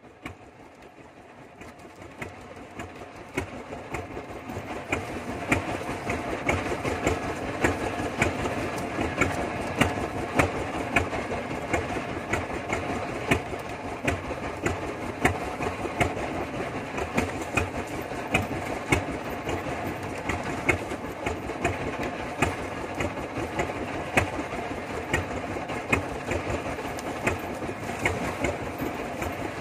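Fishing boat's engine running steadily, building up over the first few seconds, with sharp regular clicks about once or twice a second.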